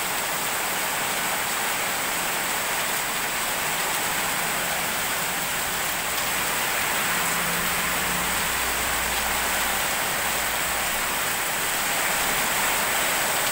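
Very heavy rain pouring down on the street and roofs, a dense, steady hiss. A faint low rumble rises under it for a few seconds in the middle.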